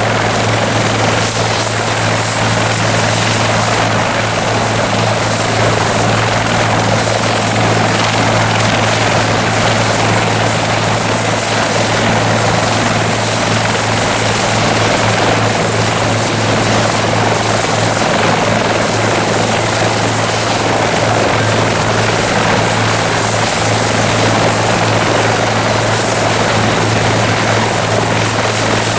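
Bell 412 helicopter running steadily at constant loudness: a dense, unchanging drone from its twin turboshaft engines and four-blade rotor, with a thin high whine held over it.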